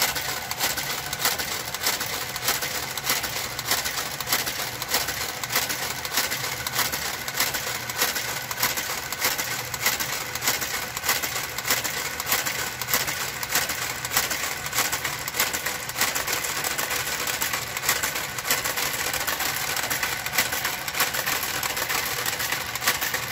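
Brother KG-93E motorised garter carriage running along the knitting machine's needle bed. It clacks about twice a second over a steady motor hum.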